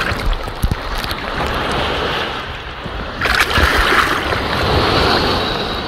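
Small waves washing and splashing in shallow sea water around a phone held near the surface, with wind rumbling on the microphone. A louder wash of water surges up about three seconds in.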